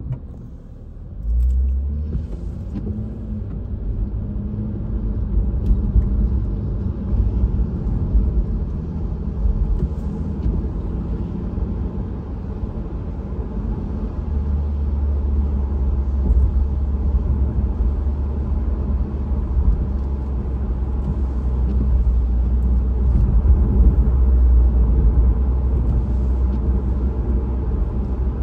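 Car cabin road noise while driving on rain-wet streets: a steady low engine and tyre rumble that steps up sharply about a second in, then runs on with slow swells.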